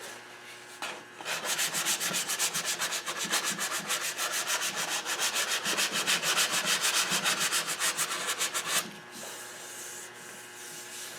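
Oak wood being sanded in quick, even back-and-forth strokes, about six a second, stopping abruptly near the end, after which a softer rubbing goes on.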